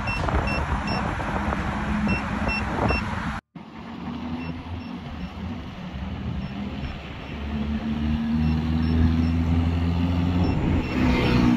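Vehicle ride with heavy wind noise on the microphone and a short high beep repeating about three times a second. The sound cuts off abruptly about a third of the way in, then returns quieter with a steady low hum that grows louder toward the end.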